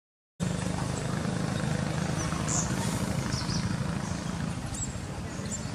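A steady low motor hum, with a few short high chirps about two and a half to three and a half seconds in. The sound cuts out completely for a split second at the start.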